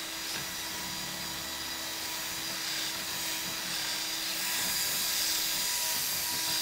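Power drill running steadily, its bit grinding into the keyway of a Schlage deadbolt's lock cylinder against the pins without breaking through.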